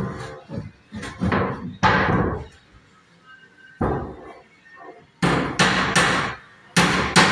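Hammer blows on wood, likely driving nails during wardrobe carpentry: irregular strikes with pauses between them, then several quick blows in a row near the end.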